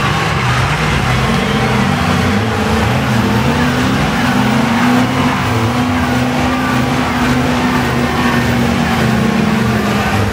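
Big diesel engines of two mega trucks running hard under heavy load in a truck tug of war, their revs wavering up and down as they pull against each other.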